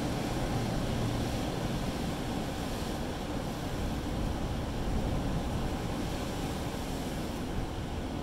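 Surf washing over a rock shelf, with a steady low rumble of wind on the microphone.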